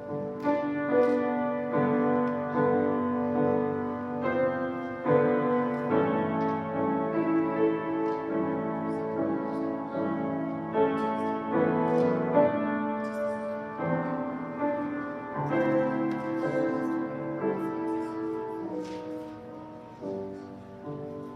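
Piano playing a slow piece of chords and melody, the notes ringing on, growing quieter near the end.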